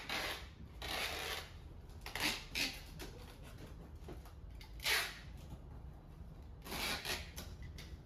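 Packing noise as a folded wheelchair is packed for shipping: about six short rustling, scraping bursts a second or two apart, the loudest about five seconds in.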